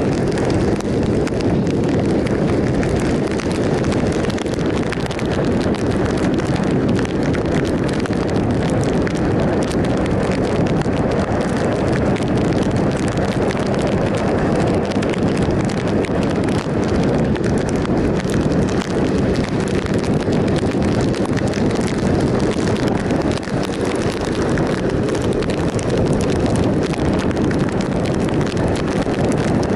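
Steady wind rush over the microphone of a 2007 Triumph Sprint ST 1050 inline-triple motorcycle cruising at a constant speed on a wet road, with engine and road noise beneath it.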